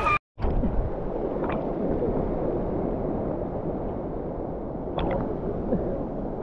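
Small sea waves sloshing and lapping against a camera held at the water's surface, a steady dull wash, with a couple of light splashes about a second and a half in and again around five seconds.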